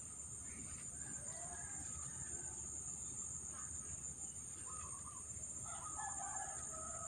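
Chickens calling, with a rooster crowing from about five seconds in, over a steady high-pitched drone of crickets or other insects.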